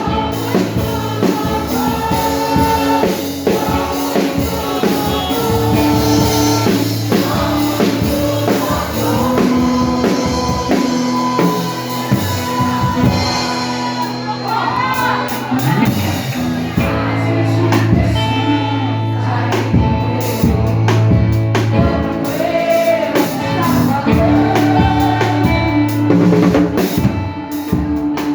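Live band playing a Christian praise song, with a singing voice, a strong bass line and a drum kit keeping the beat.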